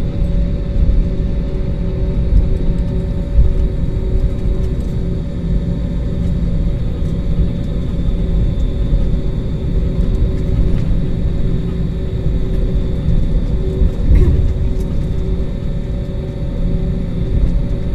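Jet airliner heard from inside the cabin during takeoff: a loud, steady engine rumble with a few steady humming tones and a faint high whine.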